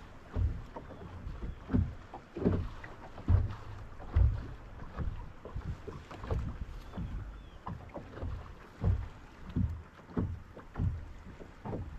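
Small waves slapping against the hull of a bass boat in irregular low thuds, about one a second.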